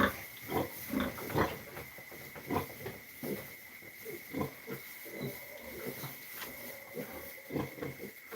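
A young animal making many short, irregular grunting and snuffling sounds, over a steady high-pitched tone.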